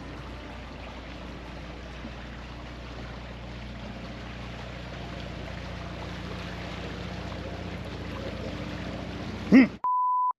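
Boat under way with its engine running steadily and water rushing along the hull. Near the end a person gives a short loud exclamation, followed by a brief steady beep.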